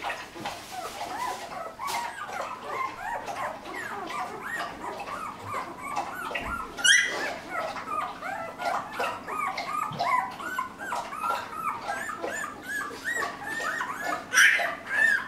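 A litter of hungry newborn puppies whimpering and squeaking, many short rising-and-falling cries overlapping without a break. One louder, higher cry stands out about seven seconds in.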